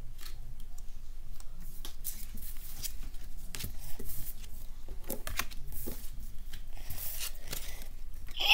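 Pokémon trading cards being handled and flipped through by hand: a scatter of light rustles and clicks.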